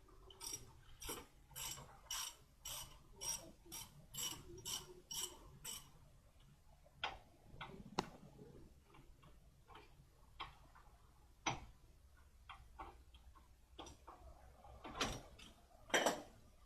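Ratchet wrench with a Torx T55 bit clicking in about ten even strokes, roughly two a second, as a brake caliper bolt is worked loose. This is followed by a few scattered metallic clicks and knocks, the loudest near the end.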